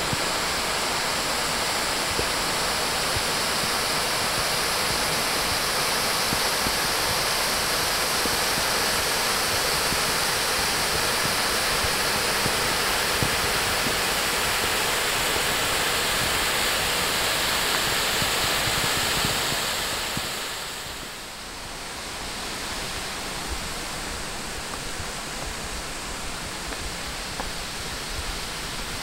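Crabtree Falls' cascades rushing: a steady rush of white water pouring over rock, the creek swollen by heavy rain. About twenty seconds in it dips and carries on as a quieter, steady rush.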